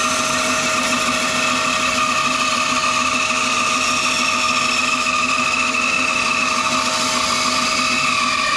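Electric workshop power tool running continuously, a steady motor whine with a few wavering tones.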